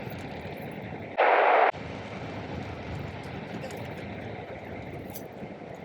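Steady low rumble of a 2004 Lexus RX330 driving, heard from inside the cabin. About a second in, a loud half-second burst of hiss starts and cuts off suddenly.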